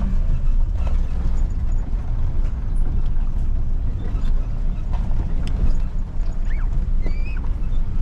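Steady low rumble of a motor vehicle running, with a few faint short squeaks in the second half.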